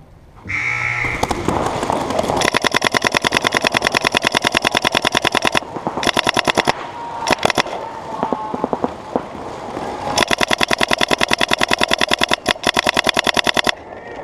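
A short game-start buzzer, then an Empire Vanquish 2.0 electronic paintball marker firing rapid strings of shots, about ten a second, in two long bursts with scattered single shots between.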